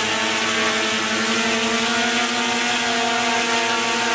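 Twin electric motors and propellers of a homemade RC model plane running at steady throttle while the plane is held on a table: an even, pitched buzzing whine.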